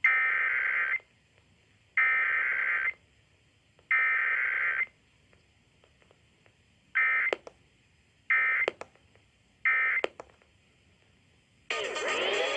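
Emergency Alert System SAME data tones for a Required Weekly Test: three one-second bursts of the digital header, then three shorter end-of-message bursts, each burst separated by about a second of silence. Music starts near the end.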